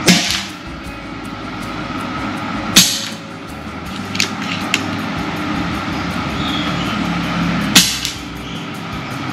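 Airmaks Krait PCP air rifle firing three shots over a chronograph: sharp reports at the very start, a little under three seconds in, and near the end, with fainter clicks between.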